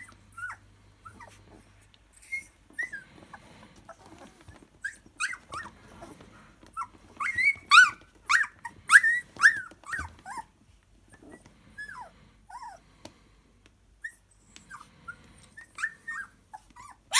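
Siberian husky puppies whimpering and squealing: many short, high-pitched cries that rise and fall, coming thickest and loudest in the middle.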